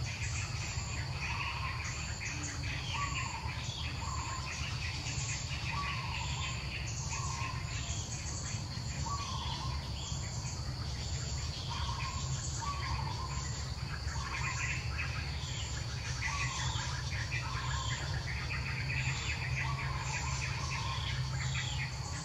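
Outdoor natural ambience: birds calling, one repeating a short chirp about once a second while others twitter, over a steady high-pitched insect drone and a low steady rumble.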